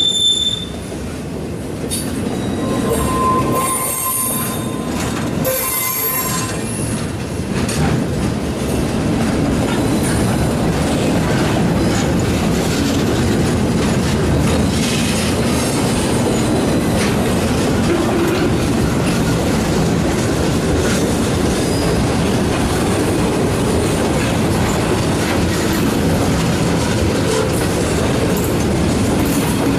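Loaded flatcars of a freight train rolling past, with a steady rumble of wheels on rail and some clickety-clack. A brief high wheel squeal comes right at the start, and a lower squeal is held for a few seconds about three seconds in.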